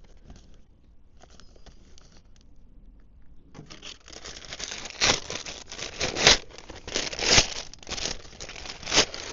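Product packaging being torn open and crinkled by hand: faint rustles and ticks at first, then from about three and a half seconds in, continuous crinkling and tearing with several loud crackles.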